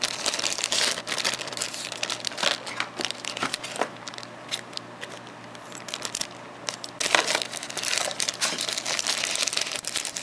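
Plastic packaging bag crinkling and rustling as hands handle and unwrap it, in uneven bursts that ease off for a few seconds midway and pick up again.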